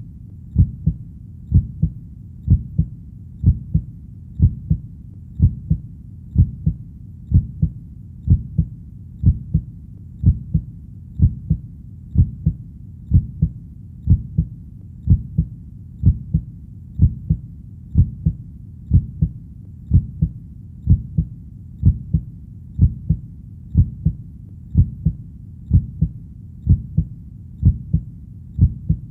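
Heartbeat sound: a steady lub-dub of low, muffled double thumps, about one beat a second, over a faint low background hum.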